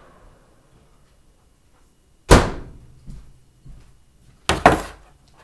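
A microwave door shutting with a loud slam about two seconds in, then two knocks close together near the end.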